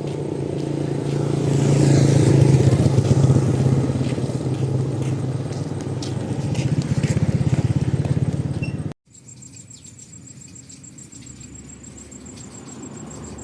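A small engine running with a steady hum, loudest about two seconds in and then easing off. About nine seconds in it cuts off abruptly to a much quieter passage with a faint, steady, high-pitched pulsing.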